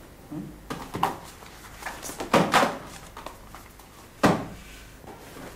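Books being pulled out and shoved about on a bookshelf: a handful of irregular knocks and thumps, the loudest about four seconds in.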